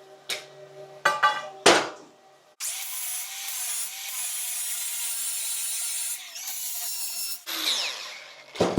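A few knocks of metal being handled, then an angle grinder starts and grinds a small weld blob off steel for about five seconds before winding down with a falling whine.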